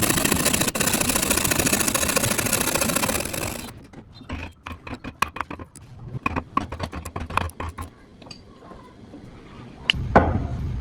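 An electric power tool runs steadily for about the first four seconds and then stops. Scattered light knocks and clicks of wood being handled follow, and a louder, busier noise starts near the end.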